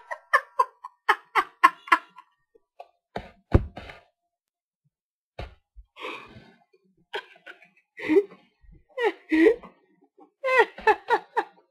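Laughter in quick pulsed bursts at the start and near the end, with a sudden loud hiccup about three and a half seconds in and a few short voiced gasps and squeaks in between.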